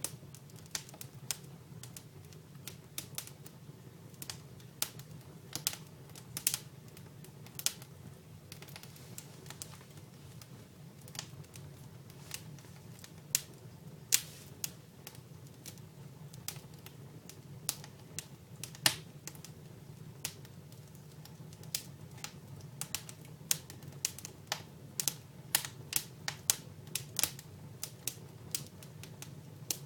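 Dry firewood crackling and popping in a fireplace fire, in irregular sharp cracks that come more often in the last third.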